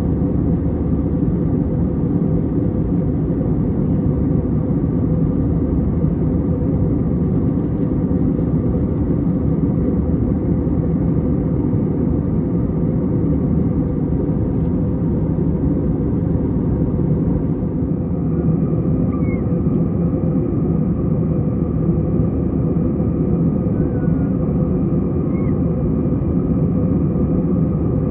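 Jet airliner cabin noise in flight: a steady, even rush of engine and airflow noise with a faint hum running through it.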